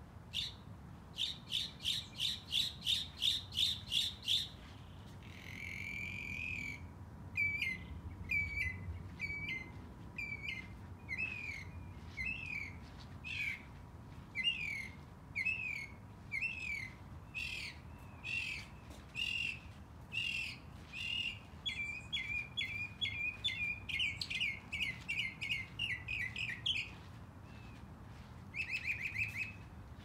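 A songbird singing a varied song: a fast trill of about four notes a second, then a buzzy note, then a long run of repeated down-slurred notes at roughly one a second, breaking into faster trills near the end.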